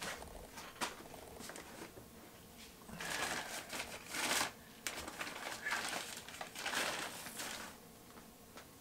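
Plastic wrapping crinkling and rustling as a camera lens is pulled out of its bag. It comes in uneven bursts, loudest about three seconds in and again around six to seven seconds.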